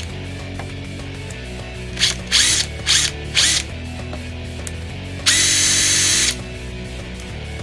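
Makita 18V cordless 4-mode impact driver spinning freely with no load: four short trigger pulls in quick succession, then one run of about a second at steady speed, each a high motor whine that starts and stops sharply.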